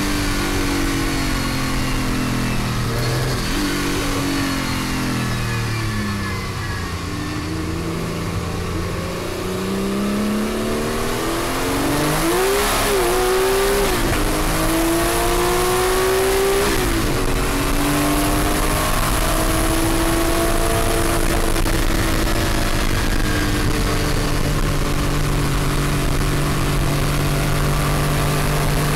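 Porsche 935 'Moby Dick' twin-turbo flat-six race engine heard from inside the cockpit. Its pitch falls in steps over the first few seconds through downshifts, then climbs through several quick upshifts and holds a steady high pitch at speed for the last ten seconds or so.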